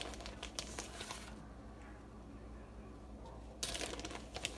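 Crinkly rustling from handling shredded mozzarella as it is grabbed and sprinkled by hand over bread in a metal pan, in two bursts: one at the start and another about three and a half seconds in, over a low steady hum.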